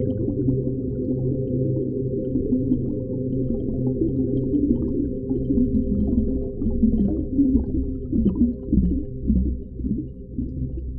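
Underwater ocean ambience: a deep, muffled rumble with wavering low moans and scattered small clicks, swelling and dipping more unevenly in the second half.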